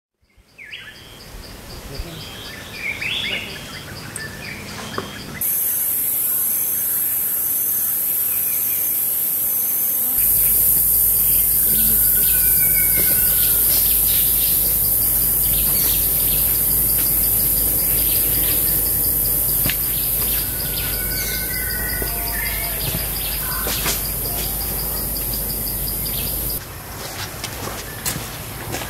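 Forest birds calling with short whistled phrases over a steady, high-pitched insect drone. A fast-pulsing insect trill runs through it. The drone cuts in after about five seconds and stops abruptly near the end.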